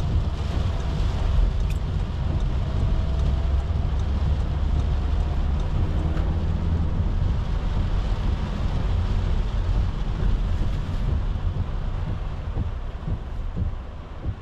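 Inside the cab of a Volkswagen Caddy van with a 2.0 TDI four-cylinder diesel, driving on a wet road: a steady low rumble of engine and road with the hiss of tyres on water. Over the last few seconds it grows quieter and duller as the van slows.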